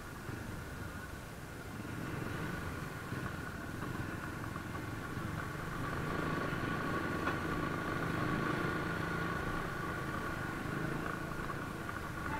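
Motorcycle engine running at low speed while riding, heard from the bike itself, getting a little louder about two seconds in and again midway as it picks up.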